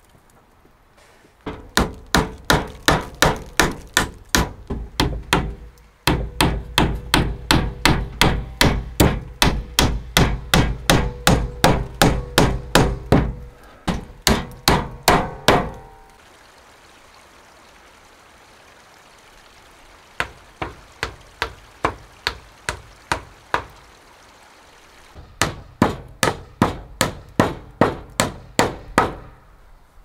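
A hatchet used as a hammer, striking a wooden board on a shelter post in quick, steady blows of about three a second. It comes in three runs: a long run, a pause of a few seconds, a short run, then a last run near the end.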